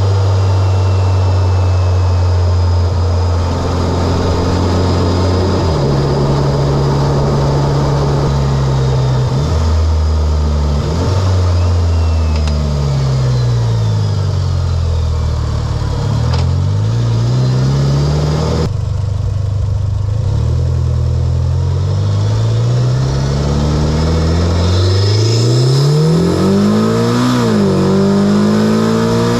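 Mitsubishi Lancer Evolution X's turbocharged four-cylinder engine, fitted with an Injen intake and HKS exhaust, under hard driving. It holds steady at first, then revs climb and drop back several times as the car is pulled through the gears.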